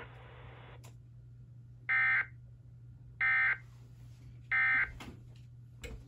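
Three short EAS End-of-Message data bursts, the 'NNNN' code sent as warbling digital tones, played from a TFT EAS 911 decoder about a second apart, signalling that the alert message is over. A steady low hum sits underneath.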